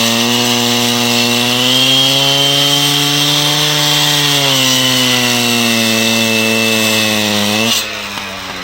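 A machine engine runs at high revs under load, its pitch rising and sagging slightly, with a thin high whine on top. Near the end it drops abruptly back toward idle.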